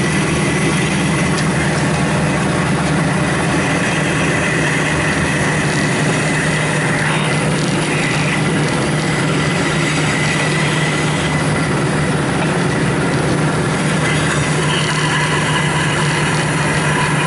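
Bandsaw running steadily, its blade cutting lengthwise through a 1¼-inch round bar that the owner believes is brass, with the motor's hum under the cutting noise.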